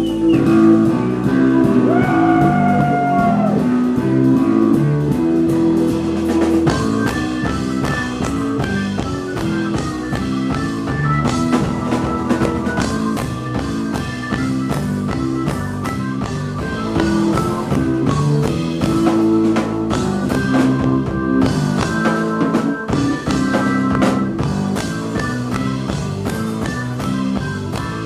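Live rock band playing an instrumental passage with no singing: drum kit and electric bass, with pitch-bent notes in the first few seconds.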